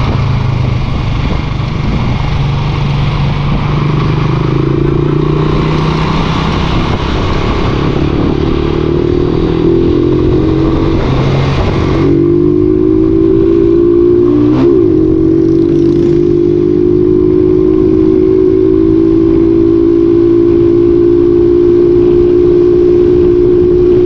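Honda TMX 155's single-cylinder four-stroke engine running through a Takasago muffler while riding. Its pitch steps up in the first half, then it holds a steady drone that climbs slowly, with a brief dip a little after halfway.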